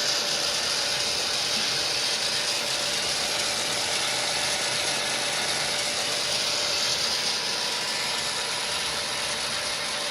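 Simulated diesel prime mover sound from HO-scale model locomotive sound decoders, playing through small onboard speakers with the throttle notched up: a steady, hissy engine drone. The MTH C44-9W's TCS speakers drown out the ZIMO speakers in the Intermountain ES44ACs.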